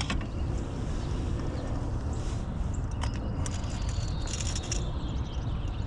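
A hooked bass is fought up to the kayak and landed: scattered clicks and knocks from the rod, reel and handling, with a short burst of splashing about three and a half seconds in, over a steady low rumble like wind on the microphone.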